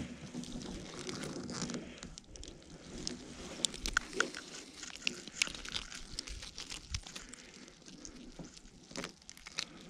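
Gloved hands picking and pulling a fine nylon gill net off a fish, the mesh rustling and crackling with irregular sharp snaps and clicks.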